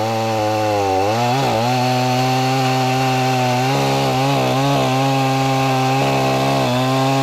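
Efco MT 6300 professional two-stroke chainsaw running at full throttle, cutting through a thick birch log along nearly the whole length of its bar. The engine pitch dips briefly about a second in and wavers slightly a few more times, but the saw holds its revs under load and cuts evenly.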